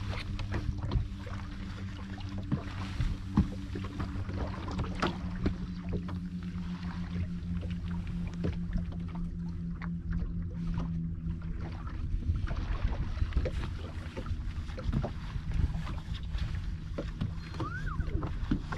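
Bass boat's bow-mounted electric trolling motor humming steadily, a little stronger for several seconds from about five seconds in, over low wind and water noise with a few small clicks.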